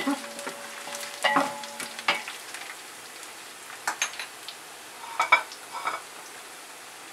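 Chopped garlic, curry leaves, cumin and mustard seeds sizzling in hot oil in a metal pot as a tempering (phodni), the garlic frying until crisp and reddish. A wooden spatula stirs, giving a few short taps and scrapes against the pot.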